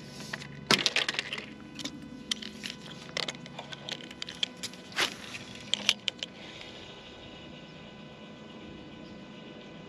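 Irregular sharp clicks and taps from handling a spinning rod and reel, several close together, then settling about six seconds in to a faint steady hiss.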